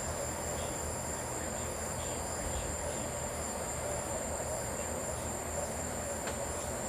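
Evening insect chorus: a steady, high-pitched trill of many insects, with a low background rumble.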